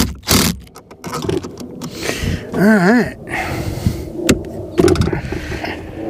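Hand tools and parts being handled: scattered clicks, knocks and scrapes, with a short hummed voice sound about three seconds in.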